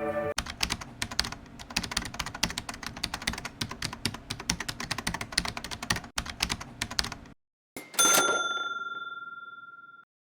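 Rapid computer-keyboard typing, a dense run of clicks lasting about seven seconds, then stopping. About a second later a single bright bell ding rings out and fades over about two seconds.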